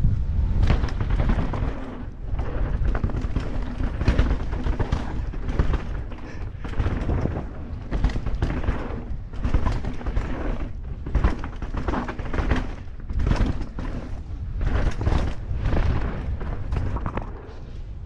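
Mountain bike descending a dirt forest trail, heard from a camera riding along: a continuous low rumbling rush of wind and tyre noise, broken by constant irregular knocks and rattles as the bike hits bumps.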